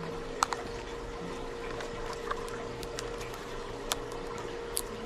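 Plastic fishing-lure packages being handled: scattered light clicks and crinkles as punched packaging scraps are picked off and lures are hung up, over a steady low hum.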